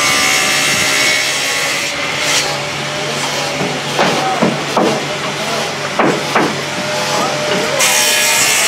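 Woodworking power saw running in a furniture workshop, a steady hum under a loud hiss of cutting that is strongest at the start and again near the end. A few brief louder sounds come about four and six seconds in.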